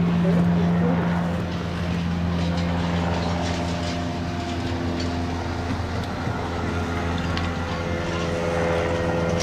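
A steady low machine drone: a low hum with several held tones above it.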